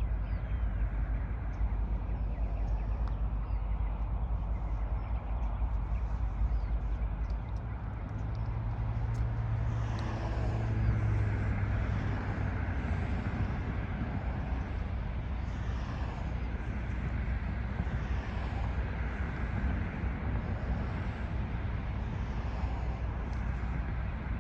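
Steady low vehicle rumble, with a deeper engine drone swelling about eight seconds in and fading a few seconds later.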